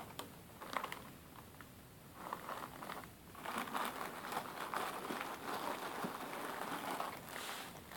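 Clear plastic zip-lock bags rustling as they are handled, with many small crackles. It is quieter at first and busier from about three seconds in.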